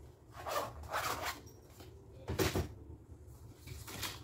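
A black fabric jewelry-tool case being closed and handled: two short rustling scrapes, then a knock about two and a half seconds in as it is put away.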